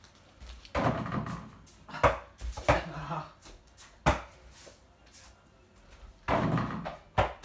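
A small ball knocking sharply three times, about two to three seconds apart, as it bounces on the floor and strikes the door-mounted mini basketball hoop.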